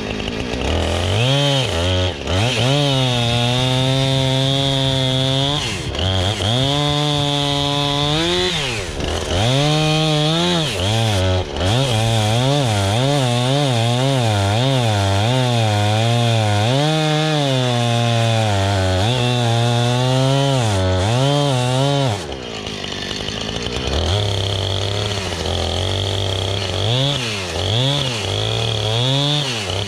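Husqvarna 455 Rancher two-stroke chainsaw at high revs cutting into a birch trunk, its pitch rising and sagging as the chain bites. About 22 seconds in it drops to a quieter, uneven run with a few short revs.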